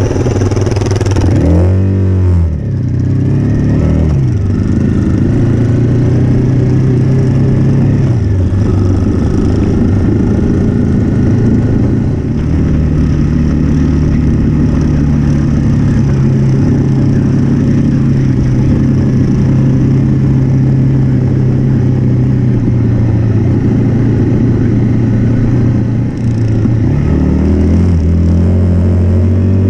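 Single-cylinder dual-sport motorcycle engine heard from the bike itself while riding. The revs sweep up and down through gear changes about two seconds in, then hold a steady drone at cruising speed, and rise and fall again near the end.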